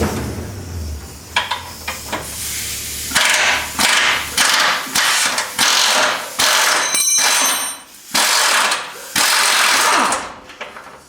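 Impact wrench rattling in repeated short bursts on an axle mounting bolt, about eight blips from about three seconds in, with a low steady hum under the first few seconds.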